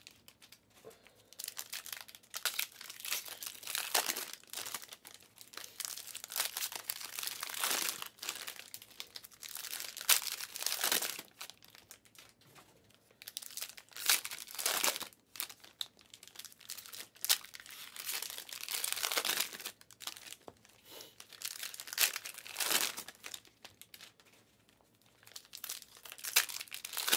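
Panini Prizm basketball card pack wrappers crinkling and tearing as they are opened by hand, in irregular bursts of rustling.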